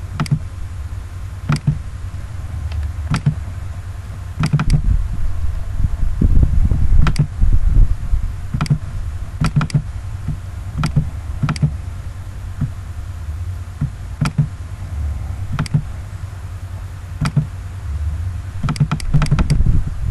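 Computer mouse buttons clicking, about twenty short clicks at irregular intervals, over a steady low rumble.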